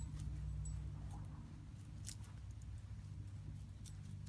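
Faint, scattered crackles and ticks of a small Miniature Pinscher moving through dry leaves and grass, over a low steady hum.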